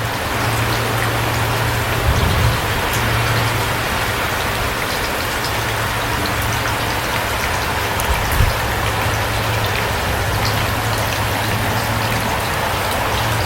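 Steady rain falling, with scattered individual drops ticking, over a steady low hum. Two brief low thumps come about two and eight seconds in.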